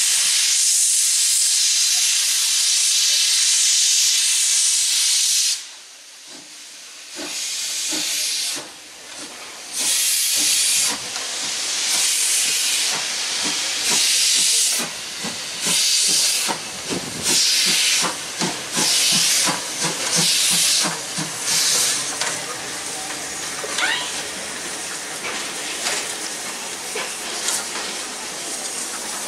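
Steam locomotive starting away: about five seconds of continuous steam hiss, then hissing exhaust beats that begin slow and come quicker as the engine gathers speed, settling into a steadier hiss near the end.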